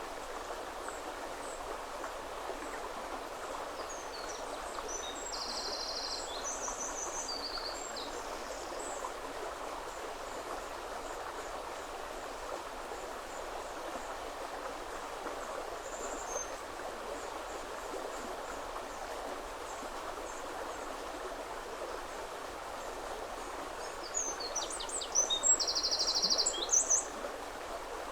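River water flowing steadily, with a small songbird singing fast trilling phrases, once about five seconds in and again, louder, near the end.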